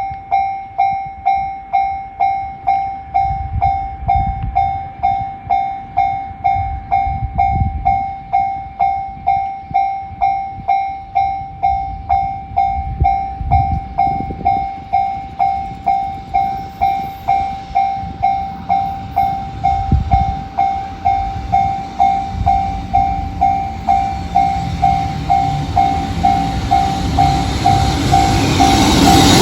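Level-crossing alarm in the JR standard electronic sound, ringing one bright tone struck over and over in a fast, even rhythm, with low rumbles underneath. Near the end the noise of an approaching freight train swells up.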